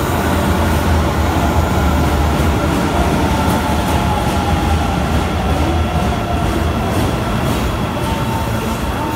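Osaka Metro Chuo Line subway train pulling into the platform: a loud, steady rumble of wheels on rail, with a motor whine that falls slowly in pitch as the train slows.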